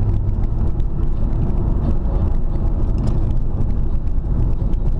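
Car driving, heard from inside the cabin: a steady low rumble of engine and tyres on the road. The engine's humming note drops away right at the start.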